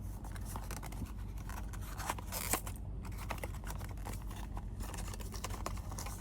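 Hands handling a plastic phone case and its pouch: scattered light clicks and scrapes, a slightly louder scrape about two and a half seconds in, over a steady low hum.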